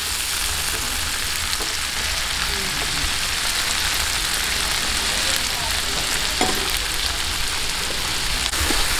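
Tomato wedges, onion and garlic frying in hot oil in a pan with a steady sizzle, stirred with a spatula as the tomatoes soften.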